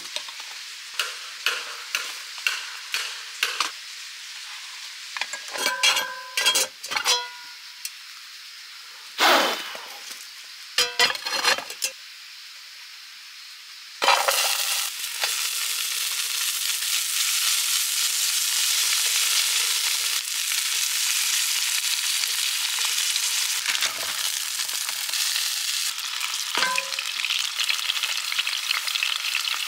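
Short clicks and knocks of utensils against a frying pan, with a few ringing metallic clinks. About halfway through, a loud sizzle starts suddenly as ingredients go into hot oil, and seafood and vegetables keep frying steadily on a gas burner.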